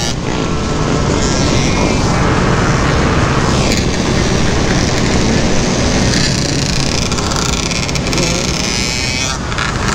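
Suzuki LT-Z400 quad's engine running under way, with wind rushing over the mounted camera's microphone and other dirt bikes and quads running around it.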